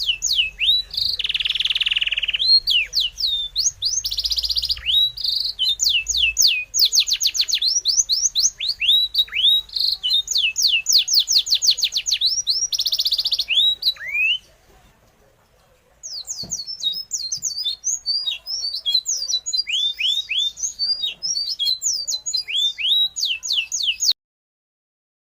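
Songbird singing: rapid series of high chirps and quick downward-sweeping trills. The song breaks off for a moment a little after halfway, resumes, then cuts off abruptly near the end.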